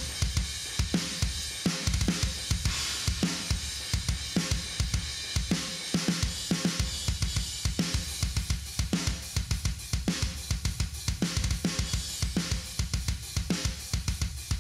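Fast thrash metal drum track at 210 bpm used as outro music: a drum kit playing quick bass drum hits and snare under a steady wash of cymbals and hi-hat.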